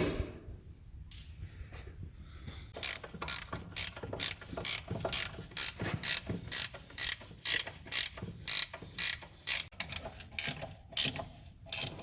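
A hand tool worked in steady repeated strokes, giving a sharp metallic click about twice a second that starts about three seconds in.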